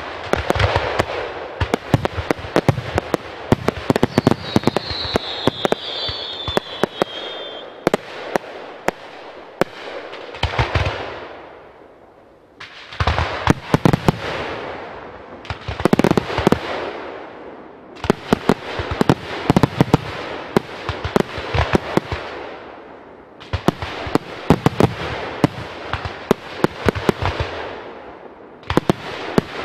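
Fireworks display: repeated volleys of sharp bangs and dense crackling that come in waves, dropping off briefly about twelve seconds in. A short high whistle sounds about four to seven seconds in.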